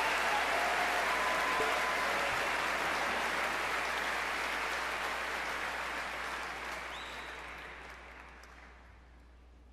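Large concert-hall audience applauding, the applause dying away over the last few seconds.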